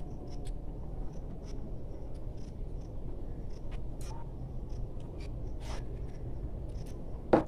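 Faint scattered light clicks and knocks as the parts of a dismantled sewing machine motor are handled, over a steady low background rumble.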